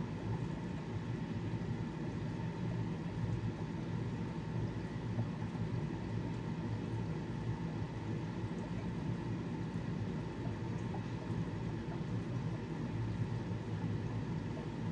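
Steady low hum with a hiss over it from the aquariums' running equipment in a fish room, unchanging throughout.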